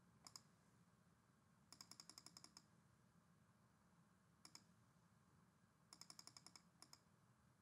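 Near silence, broken by faint clicking at a computer: two short runs of rapid, evenly spaced clicks and a few single clicks.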